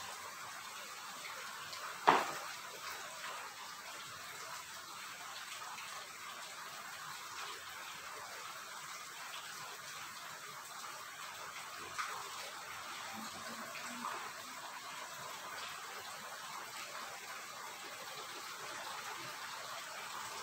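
Quiet steady hiss of room noise, with one sharp click about two seconds in and two lighter taps later on.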